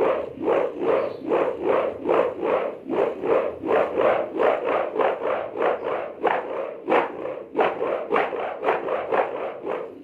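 Kite hummer (sewangan) on a gapangan kite buzzing in the wind with a rasping, snoring throb, about three pulses a second.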